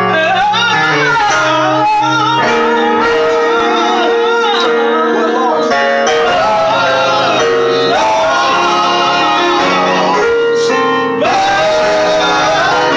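Gospel vocal group singing in harmony, voices gliding and swelling over long chords held on a keyboard.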